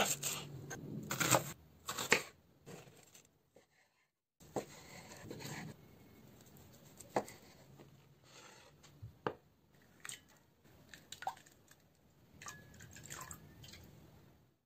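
Kitchen knife cutting through a red onion on a wooden cutting board: crisp, crunchy slicing cuts, thickest in the first couple of seconds, then single sharp knocks of the blade on the board every second or two.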